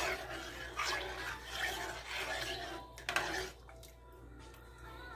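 Metal spoon stirring coconut milk and water into rice in a metal pot: the liquid swishes and the spoon scrapes, with one sharp knock against the pot about three seconds in. It goes quieter for the last second or two.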